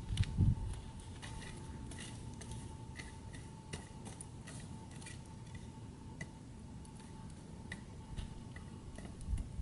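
Wood fire crackling in a fire pit: scattered sharp pops and ticks, a few each second, over a low rumble, with a dull thump about half a second in.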